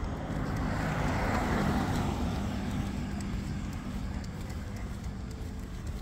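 A car driving past on the street. Its tyre and engine noise swells about a second or two in, then fades away over the next few seconds.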